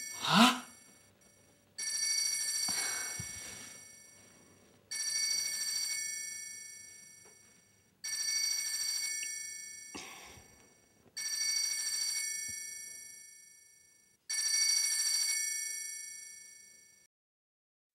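Mobile phone ringing with an incoming call: five bell-like rings about three seconds apart, each fading out. The ringing stops shortly before the end.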